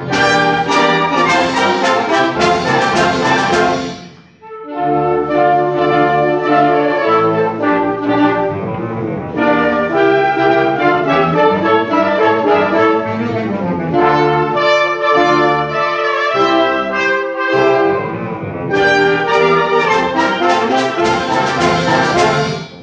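Live ensemble music with prominent brass, such as trumpets and trombones. Loud full chords play for the first few seconds and break off sharply about four seconds in. A lighter, moving passage follows, and the full sound swells back near the end.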